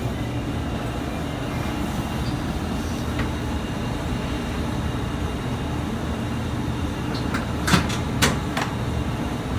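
Steady low hum of room noise, with two short sharp clicks about half a second apart near the end.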